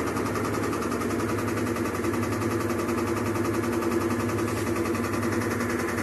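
Mabe stacked washer-dryer's washer running in its spin cycle, a steady fast rattling clatter over a droning hum. It is the sound of worn drum bearings whose grease has been washed out by leaking water, together with what the technician takes most likely for failing suspension dampers.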